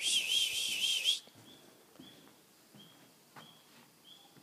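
A person whistles a warbling, trilling high note for about a second, calling the dog. Faint short high chirps follow, repeating several times.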